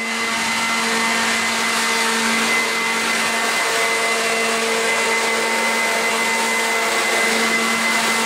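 An electric blower-type motor running steadily: a loud, even rush of air with a steady hum underneath.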